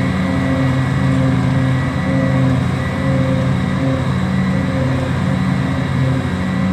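Diesel engines of a forage harvester chopping wilted grass for haylage and of a tractor pulling a forage wagon past close by, together giving a loud, steady machine drone with a thin high whine over it.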